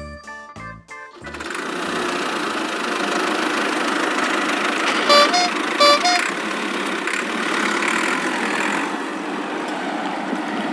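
A keyboard melody stops about a second in, and a cartoon vehicle engine sound effect starts and runs steadily. Around the middle a horn honks twice, each honk two short stepped beeps.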